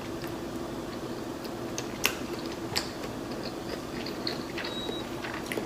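Close-miked biting and chewing of a soft, slippery rice-noodle shrimp roll, with small wet mouth clicks and a couple of sharper clicks about two and three seconds in. A steady low hum runs underneath.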